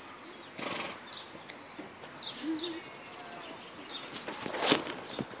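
Small birds chirping: short, high, falling calls repeated every second or so. A brief rustle comes about half a second in, and a louder rustle about four and a half seconds in.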